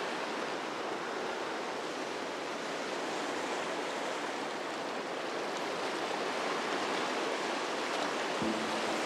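Ocean surf: waves breaking in a steady rushing wash.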